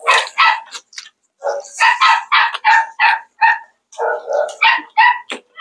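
A dog barking repeatedly, several short barks a second in three quick runs.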